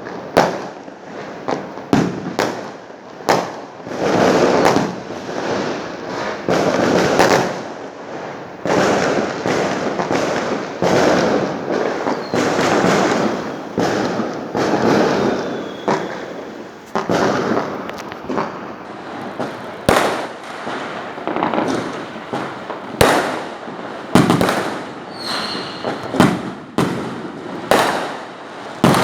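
Fireworks going off in a steady barrage: sharp bangs one after another, each trailing into crackling.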